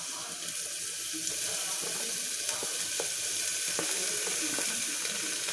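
Chopped tomato, onion and bell pepper sizzling as they drop into hot olive oil in a pot, a steady hiss that grows a little louder about a second in. A few light clicks of a spoon scraping them off a cutting board.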